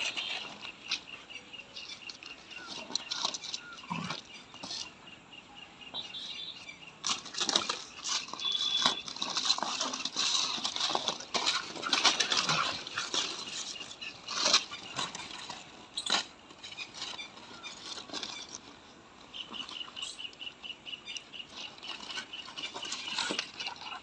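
Rottweiler puppy tugging, shaking and dragging a strip of fabric over concrete in play: irregular flapping and scuffling noises with light paw steps.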